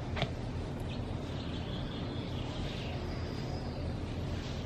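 Faint bird chirps over a steady low background hum, with a single click shortly after the start.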